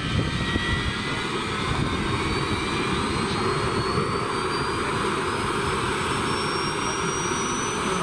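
Small gas-turbine engine (Jakadowski Pro X) of a large scale model EC-145 helicopter spooling up during start-up: a thin high whine rising steadily in pitch over a dense rushing, rumbling noise.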